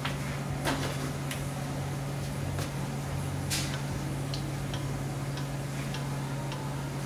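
About ten light clicks and taps at irregular intervals, two of them louder, about a second in and midway, over a steady low hum.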